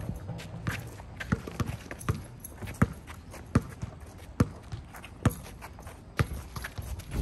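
Basketball dribbled on a hard court, about one sharp bounce a second, with lighter taps and footfalls between.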